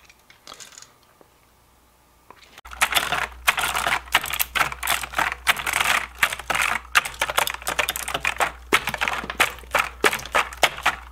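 After a quiet couple of seconds, the keys of a Razer keyboard click and clatter rapidly and irregularly as a blob of cleaning gel is pressed and dabbed across them.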